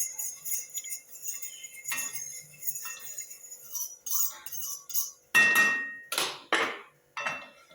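A metal spoon stirring and scraping peppercorns in a hot kadai: a faint sizzle with small clinks at first, then about four sharp clanks of the spoon against the pan in the last few seconds, each ringing briefly.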